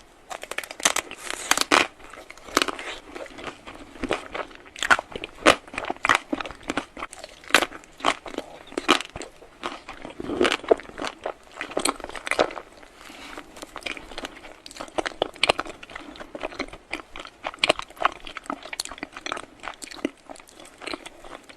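A person biting and chewing crunchy food close to the microphone: a dense, irregular run of crisp crunches and crackles.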